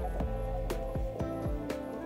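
Background music with a steady beat: a low kick drum pulse and a sharp hit about once a second over sustained chords.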